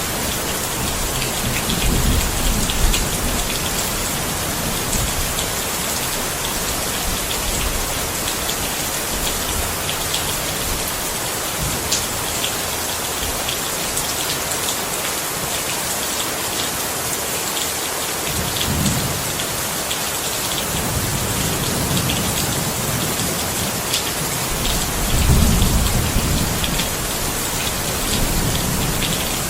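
Steady heavy rain pattering on surfaces, with low rolls of thunder rumbling several times, the strongest about 25 seconds in.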